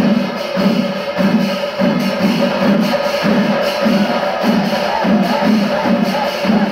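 Chenda melam, the Kerala temple ensemble of chenda drums and ilathalam cymbals, playing the kalasam, the climax of the melam. Heavy drum beats come about two to three a second over a steady held tone.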